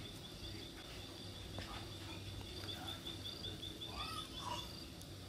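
Outdoor insect chirping: a high, even run of chirps about six a second, loudest in the middle, over a faint steady insect tone. Two short lower calls come about four seconds in.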